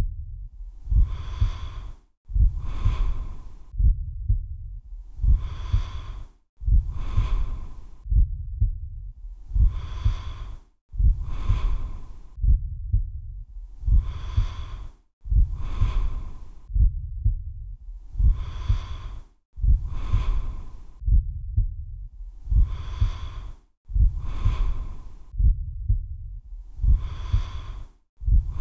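Slow, deep breathing: a hissing breath in and a breath out, repeating about every four and a half seconds, over a low pulsing rumble.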